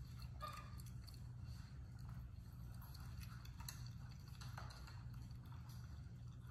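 Faint scattered ticks and rustles of fingers stroking a monkey's fur, over a low steady hum.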